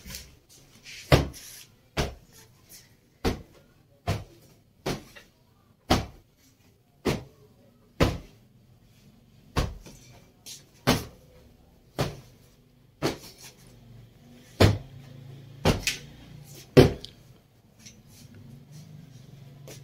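A cloth duster slapped again and again against the bed and furniture to beat the dust out, sharp slaps about once a second. A low hum joins in over the last few seconds.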